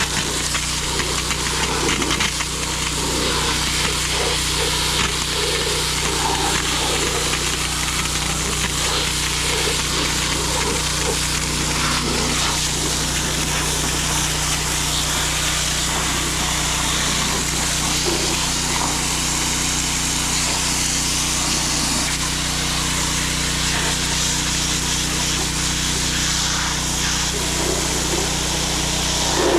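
Small pull-start gasoline water pump engine running steadily, with water spraying hard from its hose as a constant hiss.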